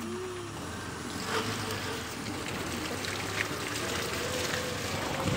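Safari jeep driving along a wet, muddy forest track: a steady wash of tyre and water noise from the mud and puddles over the running engine.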